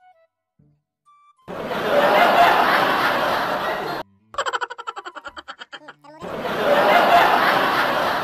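Dubbed-in laugh track: after a few faint musical notes, a loud burst of crowd laughter comes in, gives way to one person laughing in rapid 'ha-ha' pulses, then the crowd laughter returns.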